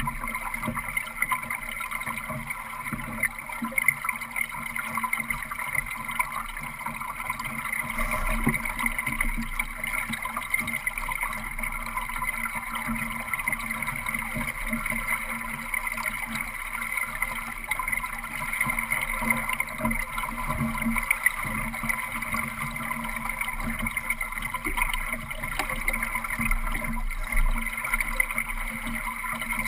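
Water rushing and gurgling along the hull of a Solo sailing dinghy under way, a steady wash with a few louder splashes.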